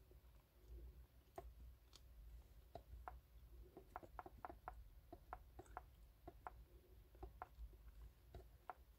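Faint, irregular clicks and light taps, bunched most thickly in the middle, from fingertips tapping and scrolling on a tablet's touchscreen, over a low hum.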